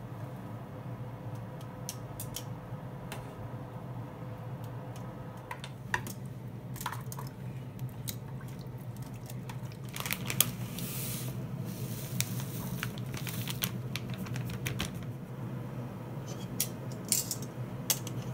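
Kitchen handling sounds: scattered light clinks and knocks of utensils, a wire strainer and dishes, with a brief hiss about ten seconds in, over a steady low hum.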